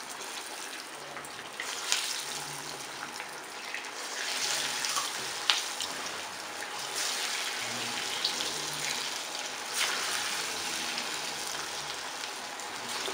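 Keerai vada (urad dal and drumstick-leaf fritters) deep frying in hot oil, just dropped in: a steady sizzle with scattered sharp crackles, swelling a few times.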